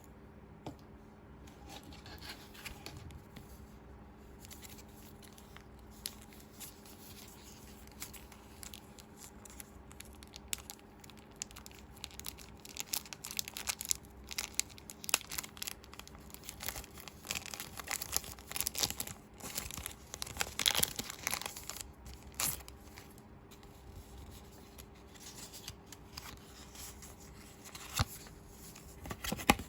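Toy packaging being handled and opened: crinkling and tearing with many small sharp clicks, busiest in the middle stretch.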